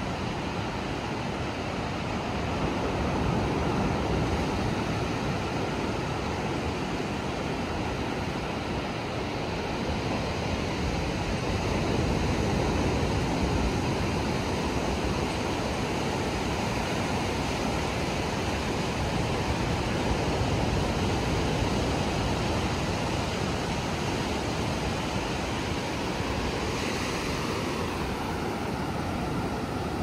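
Ocean surf breaking on a sandy beach: a steady wash of waves that swells and eases every several seconds, with a brief brighter hiss near the end.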